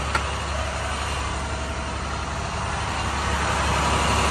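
Truck diesel engine idling steadily, heard from inside the cab as a low, even rumble. There is a small click just after the start.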